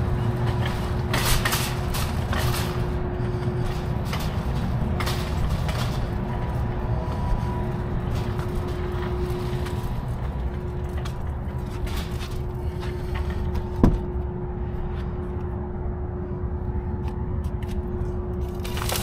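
An idling engine gives a steady low rumble with a constant hum. Scattered knocks and clicks come over it in the first few seconds, and one sharp knock comes about two-thirds of the way through.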